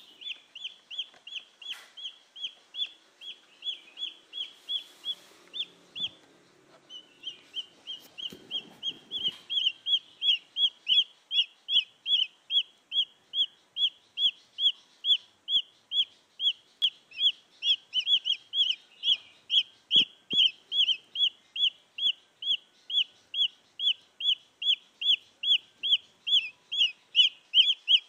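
Junglefowl chick peeping over and over: short, high notes that drop in pitch, about two a second, then after a brief pause about three a second and louder. This is the wild chick's call that draws junglefowl hens in.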